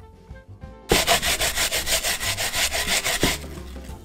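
Brief piano music, then from about a second in, half an onion scraped back and forth on a plastic hand grater with metal blades: rapid rasping strokes, about four a second, with a short pause near the end.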